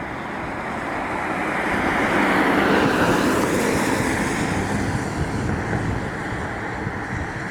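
A car passing close by on the road, its tyre and engine noise swelling to a peak about three seconds in and then fading away.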